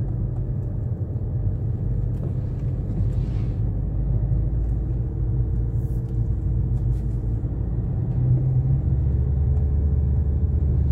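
Car cabin noise while driving: a steady low rumble of engine and tyres on the road. About eight seconds in the drone shifts lower and grows a little louder.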